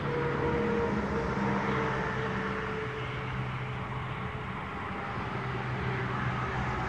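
Steady mechanical hum of a running motor, with several held tones that slowly drift in pitch over a background rush.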